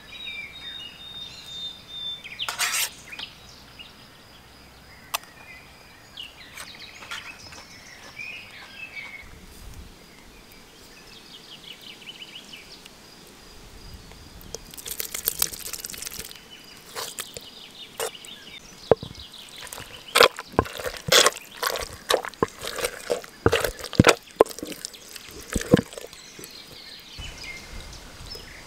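Wooden masher pounding the cooked lamb, potatoes and chickpeas of a dizi inside its stone pot, mashing them into a paste: a run of irregular wet knocks in the second half, after quieter handling of the food.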